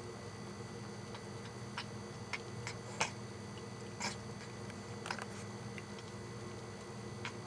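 A pet eating, its mouth making strange sharp clicks and smacks at irregular intervals, roughly one a second, the loudest about three and four seconds in.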